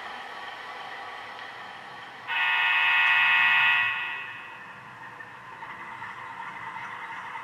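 HO-scale model diesel locomotive's sound-decoder horn: one multi-tone horn blast starts suddenly about two seconds in, holds for about a second and a half and fades, over a steady running hum.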